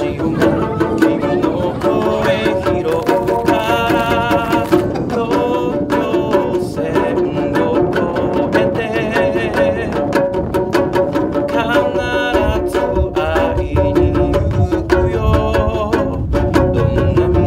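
A man singing a song in Japanese to a plucked long-necked lute, with the bass growing heavier about twelve seconds in.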